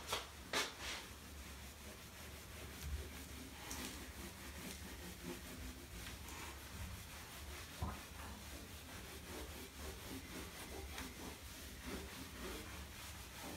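A cloth wiping marker writing off a whiteboard: faint, steady rubbing with a few light knocks.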